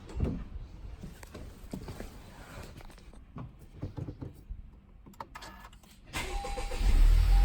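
Honda Civic Type R's turbocharged 2.0-litre four-cylinder cranking and catching about six seconds in, then settling into a steady idle: its first start on fresh oil after an oil change. Before that, a few faint clicks and knocks.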